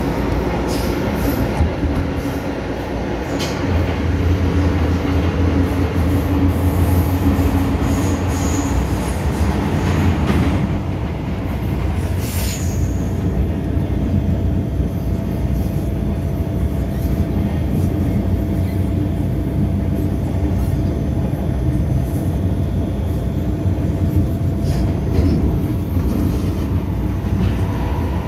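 MTR M-Train electric metro train running at speed, heard from inside a passenger car: a loud low rumble of wheels on rail in the tunnel, easing about ten seconds in as the train comes out into the open, with a brief high screech a couple of seconds later and steady rolling and clatter after that.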